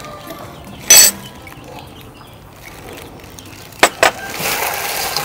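Kitchen handling sounds: one short clatter about a second in and two sharp clicks near four seconds, then a steady wet rustling as chicken tails are mixed in their fish-sauce marinade.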